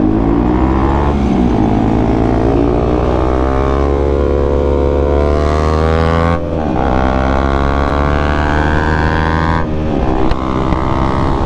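Bajaj Pulsar NS200's single-cylinder engine accelerating hard through the gears, its pitch climbing steadily and dropping sharply at upshifts about six and a half and ten seconds in.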